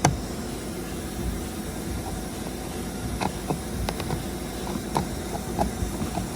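Screwdriver working a T20 Torx screw out of a car door card, giving a few scattered light clicks over a steady background hiss.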